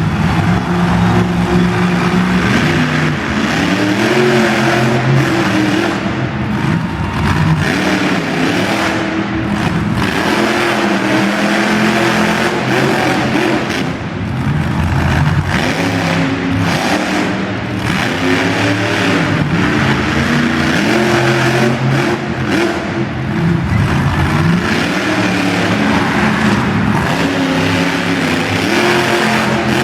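Monster truck engine revving hard and dropping back again and again, loud throughout.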